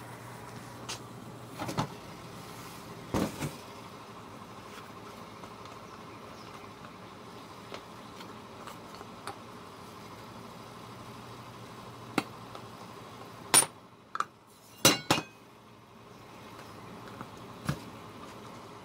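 Rotary tumbler's motor humming steadily while its barrel is handled: scattered knocks and sharp clinks of metal, the loudest about two-thirds of the way in, after which the hum stops.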